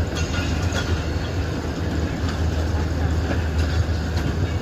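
Train moving slowly in reverse towards a platform: a steady low rumble with scattered sharp clicks from the wheels and carriages.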